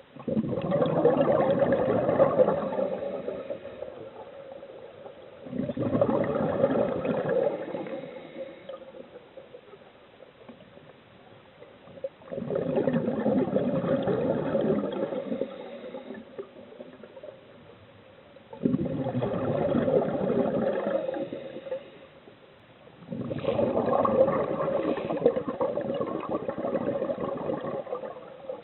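Scuba diver's exhaled bubbles gurgling out of the regulator, in five bursts of three to four seconds each, about every six seconds, with quieter gaps between breaths.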